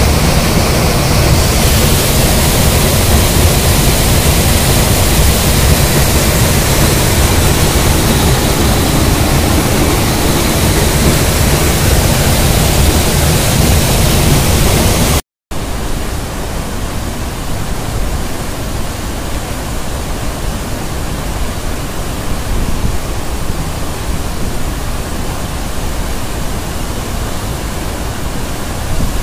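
A rain-swollen waterfall pouring down a rock gorge and churning over boulders: a loud, steady rush of water. The sound cuts out for an instant about halfway through, then goes on a little softer.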